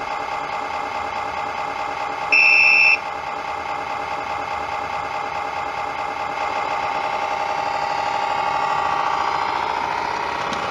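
MyLocoSound module in a G-scale model locomotive playing a steady locomotive running sound through its small speaker, getting a little louder past the middle. About two and a half seconds in, a short, high horn note sounds once.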